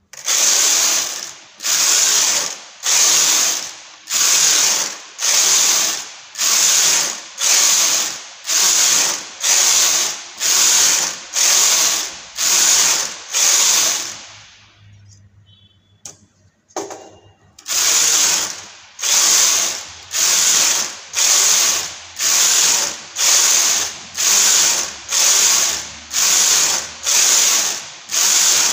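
Chunky-gauge knitting machine carriage being pushed back and forth across the needle bed, knitting straight rows. Each pass is a rasping clatter that swells and fades, about one pass every 0.8 seconds. The strokes stop for about three seconds around the middle, then resume at the same pace.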